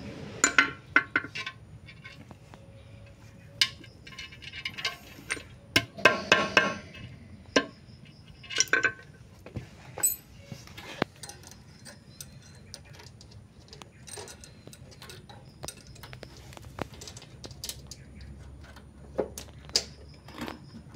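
Loose steel roller chain clinking and rattling against metal as it is lifted and handled, in irregular bursts of metallic clatter with scattered sharp clicks.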